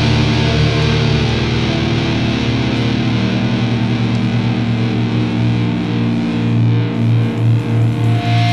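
Heavy metal music with distorted electric guitar holding long ringing chords.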